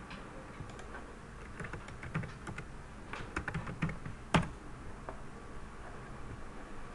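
Typing on a computer keyboard: a scattered run of key presses, then one louder click about four and a half seconds in.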